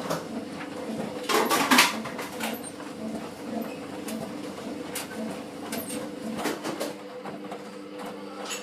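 A domestic laundry machine running, with a steady motor hum as its drum turns, and irregular light knocks with a louder clatter about one and a half seconds in.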